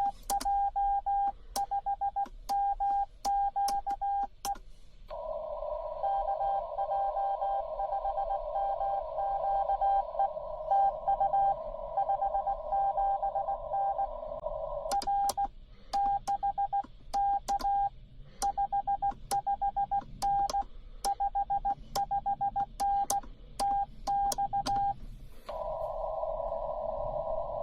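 Ham radio Morse code (CW) exchange: a single mid-pitched beep keyed in dots and dashes, with a sharp click at many of the elements. Twice, about 5 seconds in and again near the end, the code continues inside a band of receiver hiss.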